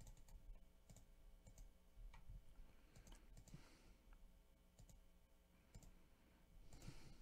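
Faint computer mouse clicks at irregular intervals over near-silent room tone.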